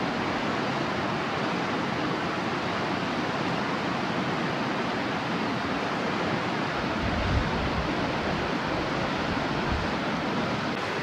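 River water rushing over rocks in a shallow riffle, a steady rush of noise, with one brief low thump about seven seconds in.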